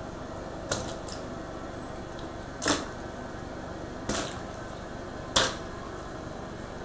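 Fidget toys dropped in one at a time for washing: four short plops or knocks, spaced a second or two apart, over a steady faint hiss.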